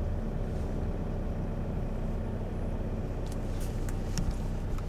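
Engine and road noise inside a Hyundai Starex van in slow traffic: a steady low hum. A few light clicks come near the end.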